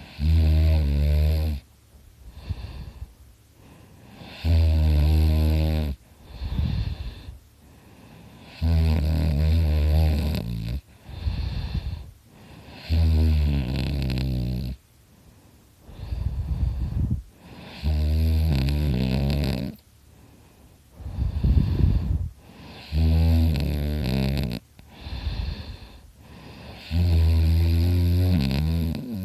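A sleeping man snoring very loudly: seven long, loud snores, about one every four seconds, each followed by a shorter, breathier sound.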